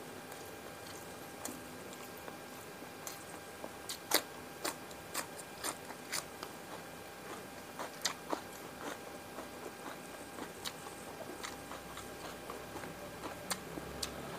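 Close-miked mouth sounds of someone eating fried tilapia with rice by hand: irregular wet clicks and smacks of chewing, a few a second, the loudest about four seconds in.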